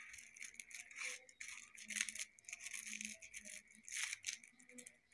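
A wrapper crinkling and rustling in the hands close to the microphone, a continuous run of small irregular crackles and clicks.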